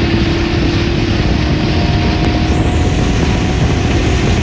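Small aluminium boat under way: its outboard motor runs steadily with a low hum under loud rushing wind and water noise.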